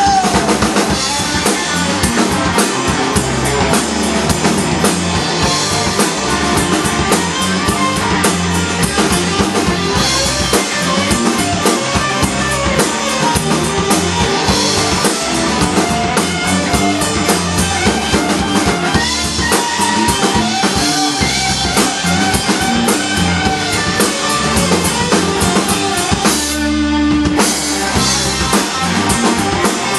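Live blues band playing a Chicago blues number: electric guitars over a drum kit.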